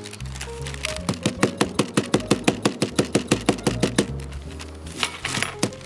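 Rapid, even taps of a kitchen tool pounding raw prawns flat between sheets of baking paper on a wooden board, about five strikes a second, flattening them for carpaccio.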